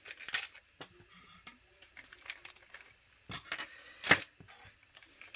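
Small plastic kit pieces and bags being handled and set down: scattered clicks and crinkles, the sharpest click about four seconds in.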